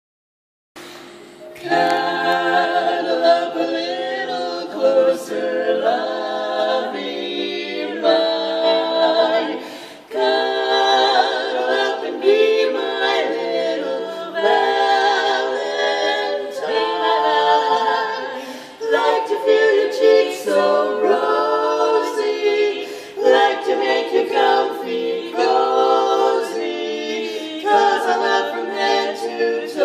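Women's barbershop quartet singing a cappella in four-part harmony, the voices coming in about a second in.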